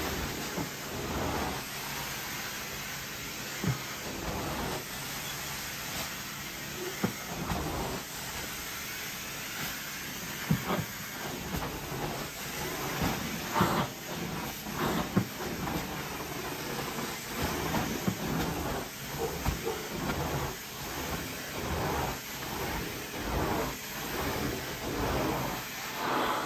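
Carpet-cleaning hot water extraction: a steady hiss and rush of the wand's spray and vacuum suction, with scattered short knocks and clicks throughout.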